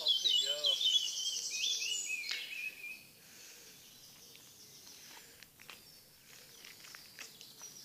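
A small songbird singing a rapid, high-pitched trilling phrase that ends after about two and a half seconds, followed by faint outdoor background.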